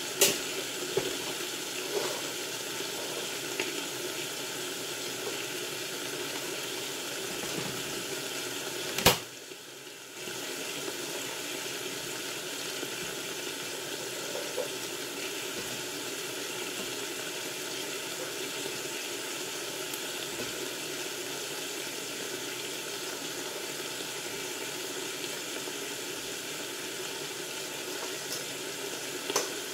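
Steady sizzling of food frying in a lidded frying pan, with a sharp click about nine seconds in, after which the sizzle briefly drops for about a second.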